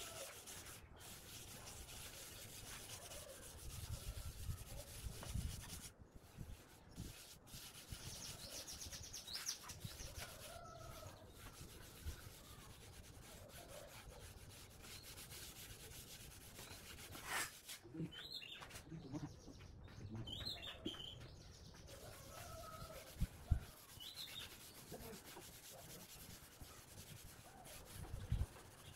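A cloth pad rubbing oil finish into a plywood tabletop: faint, steady scrubbing of cloth on wood.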